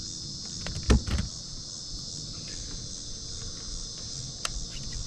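Steady high-pitched chorus of insects, with a dull thump about a second in and a few sharp clicks near the end.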